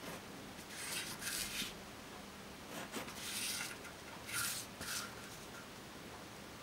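Fine-tip pen scratching on paper as lines are drawn, in three spells of strokes: about a second in, near the middle and about two-thirds in.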